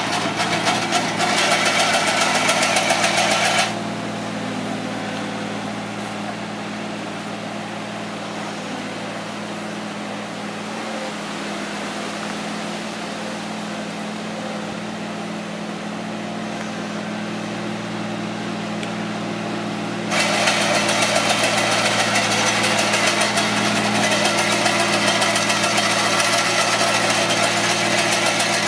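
Avant 635 compact loader's engine running steadily while its Slanetrac hedge trimmer's reciprocating finger-bar cutter chatters through hedge growth. The loud, rapid cutting clatter drops away for a long stretch after a few seconds, leaving a quieter steady engine hum, then comes back loud near the end.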